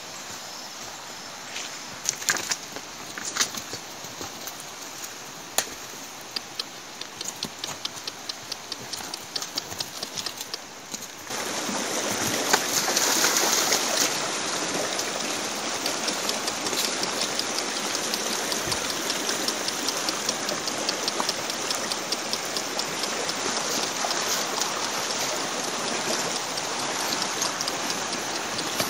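Shallow stream running over rocks, a steady rushing that starts suddenly about 11 seconds in. Before it, a quieter stretch with scattered short clicks.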